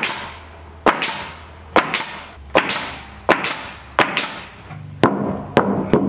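Pneumatic nail gun firing about eight times, roughly once a second, driving nails through rough-sawn boards overhead. Each shot is a sharp crack followed by a short hiss of exhaust air.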